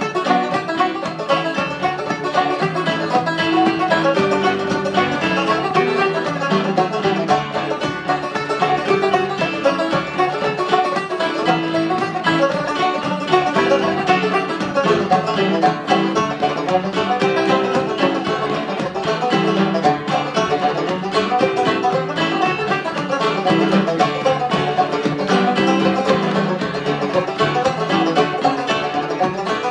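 Two banjos picking a fast traditional tune together, with keyboard piano accompaniment; a steady, unbroken stream of quick plucked notes.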